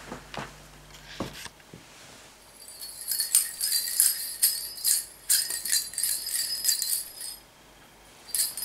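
Small bell inside a plastic cat toy ball jingling rapidly as the ball rolls and is knocked about, starting about two and a half seconds in and stopping shortly before the end, with a short burst again near the end. A few light knocks come before the jingling.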